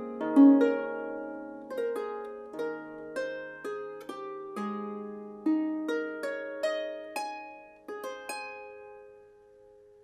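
Solo lever harp plucked by hand: a slowing line of single notes and chords, each left to ring. The last notes come about eight seconds in and fade away, closing the piece.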